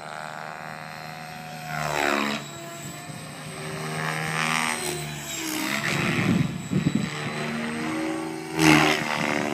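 Radio-controlled helicopter in flight: its motor and rotor whine rises and falls in pitch as it swoops about, louder about two seconds in and again near the end.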